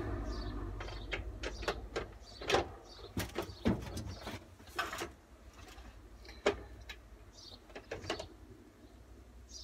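Irregular clicks, taps and knocks as a tractor seat is handled and bolts are fitted into the bolt holes in the back of its seat pan. A few louder knocks stand out among lighter taps.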